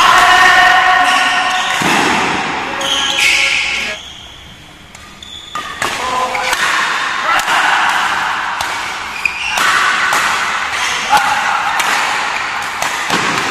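Badminton doubles rally: racket strings striking the shuttlecock in sharp cracks, with players' voices and shouts. It drops quieter for about a second and a half around four seconds in.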